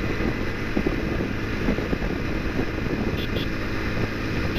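A Bajaj Pulsar 180's single-cylinder engine runs steadily at high highway speed, with wind rushing over the microphone. Two faint short high tones sound about three seconds in.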